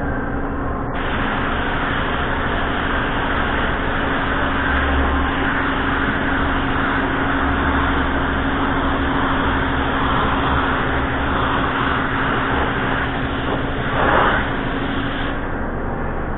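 Gravity-feed paint spray gun hissing as it sprays clear coat onto a car bumper cover, over a steady hum. The hiss starts about a second in and stops shortly before the end, with a brief louder burst near the end.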